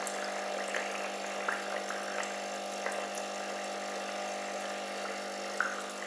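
Osaga MK 9502 membrane air pump humming steadily while its airlift sputters with bubbling and scattered pops, the airlift's outlet held under the water.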